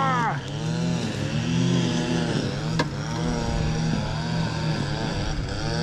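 A boat's motor running, its pitch rising and falling about once a second, with a single sharp click a little under three seconds in.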